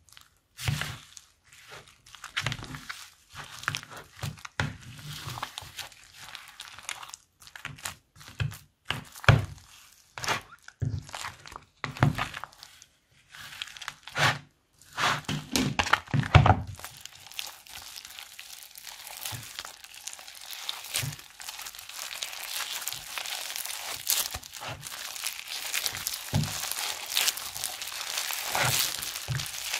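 Foam-bead slime being mixed: polystyrene foam beads crackling and squelching against slime and clay, with separate scrapes and thunks of a silicone spatula in a plastic bowl. About halfway through it turns into a dense, continuous crackle as the bead-filled slime is kneaded and squeezed by hand.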